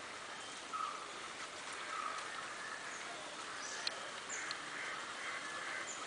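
Birds calling over a steady outdoor hiss: a short note repeated about once a second, with fuller calls and a few brief high chirps in the second half.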